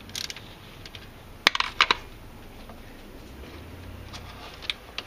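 Sharp metallic clinks from a socket wrench and removed valve-cover bolts being handled: a cluster about one and a half seconds in, another just before two seconds, and a single click near the end.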